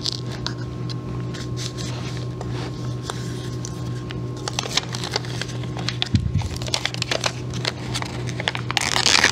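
Double-sided woodworking tape being laid and pressed down onto a template: a run of small crackles and clicks as the sticky tape is handled, with a louder rip near the end. A steady low hum runs underneath.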